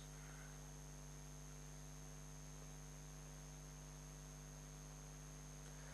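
Near silence: a faint steady electrical hum with a thin high whine over light hiss.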